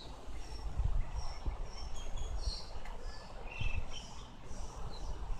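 Small birds chirping, many short high calls scattered throughout, over an uneven low rumble.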